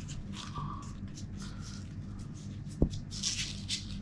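Quiet rustling and handling of warm khubz flatbread, with one short dull knock about three quarters of the way through, over a low steady hum.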